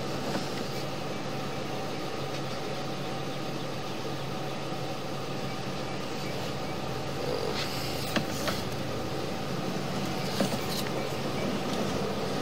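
A machine running with a steady low hum, with a couple of faint clicks in the second half.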